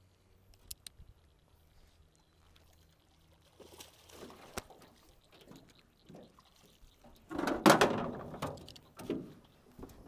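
Hooked bass splashing at the water's surface as it is brought to the boat and landed, in several bursts, the loudest about three-quarters of the way through, with a few sharp knocks along the way.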